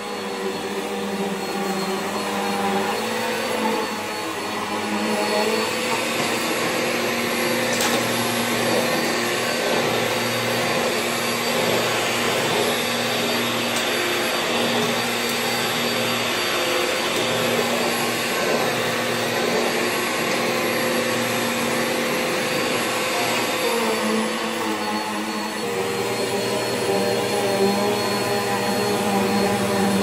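Bissell PowerForce Helix (12B1) bagless upright vacuum with its 10-amp motor running steadily, a constant motor whine with airflow rush. Its sound shifts a little about four seconds in and again near the end, with a brief click about eight seconds in.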